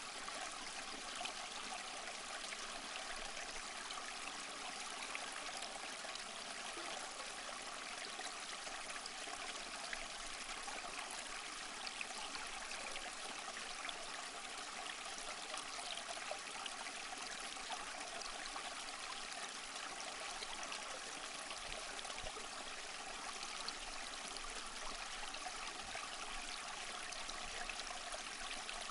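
Small stream flowing: a steady, even rush of running water that does not change.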